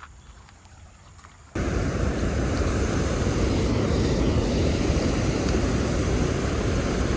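A loud, steady rushing noise, strongest in the low end, starts abruptly about a second and a half in.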